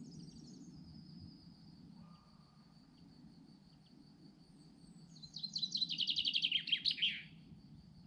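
Songbird singing: a short chirp at the start, then about five seconds in a loud, fast trill lasting about two seconds that falls in pitch toward its end. A steady high thin tone and a low background rumble run underneath.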